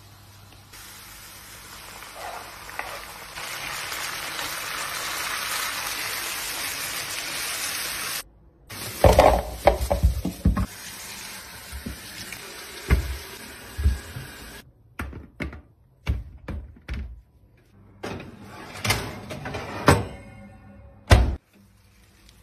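Kitchen tap water running steadily into a sink for several seconds. Then a string of separate knocks and clunks as vegetables and kitchenware are handled, with a loud clunk near the end.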